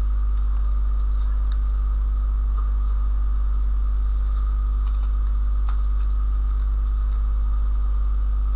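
Steady low electrical hum, with a few faint clicks of keys being typed.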